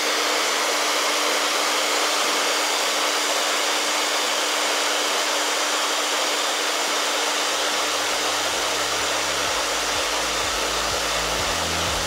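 Handheld human hair dryer running steadily on medium heat: a continuous rush of blown air with a steady hum underneath.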